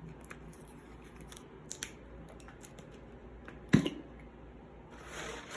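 Packaging being handled and opened, with faint rustling and small clicks. One sharp click comes about two-thirds of the way through, and a louder rustle near the end.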